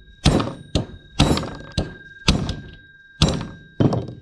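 Mallet blows on a mini bike's centrifugal clutch, forcing it back onto the shaft. Seven sharp knocks about half a second apart, heavier and lighter in turn, with a thin metallic ring hanging on between them.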